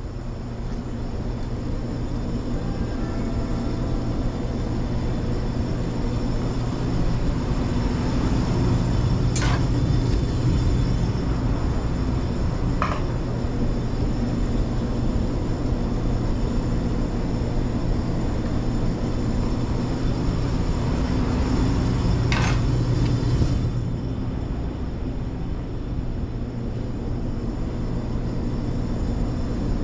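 Steady hum of kitchen machinery running throughout, with a few short sharp metal clinks as chicken kebab is pushed off a flat steel skewer into a foil tray.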